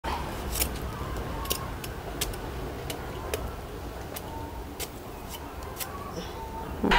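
Irregular sharp clicks as a curved iron knife cuts into an elephant foot yam corm, about nine strokes spread over several seconds.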